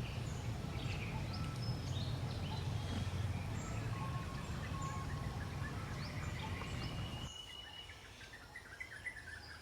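Outdoor forest ambience: birds chirping and calling over a low steady rumble. The rumble cuts out suddenly about seven seconds in, leaving fainter chirping.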